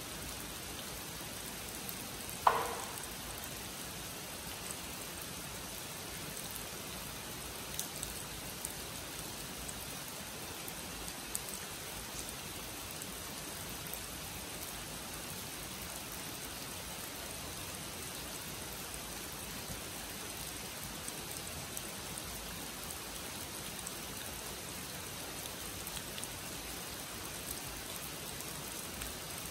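Steady rain falling on a garden pond and the surrounding leaves, an even hiss with scattered drips. One sharp knock stands out about two seconds in.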